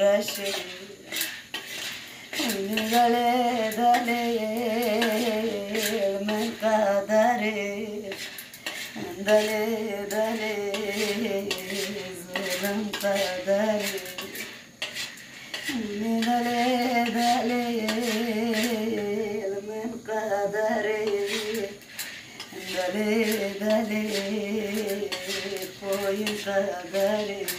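A woman singing a song in four long, ornamented phrases with short breaths between them, over the clinking and scraping of a metal spoon stirring menengiç (terebinth) beans as they roast in a steel pan.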